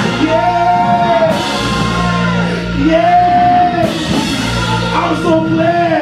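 A man's voice, amplified through a microphone, singing about three long held, wavering notes over loud instrumental backing with a steady low chord.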